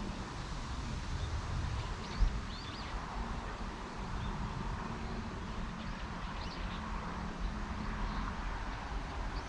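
Outdoor ambience: a steady low rumble like wind on the microphone, with small birds chirping several times in short calls. A single thump comes about two seconds in.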